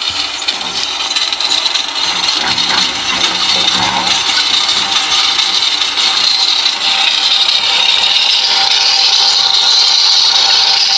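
A bicycle wheel driving a belt to a tubewell pump's pulley, spinning with a steady whirring, rubbing noise. It grows louder as it speeds up, and a steady hum settles in about halfway through.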